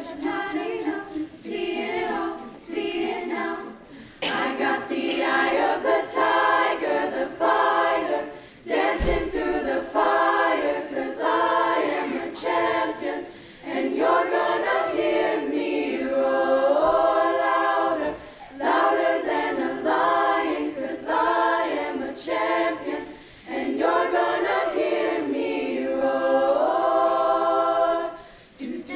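Treble choir of women's voices singing a cappella in parts, in phrases a few seconds long separated by short pauses.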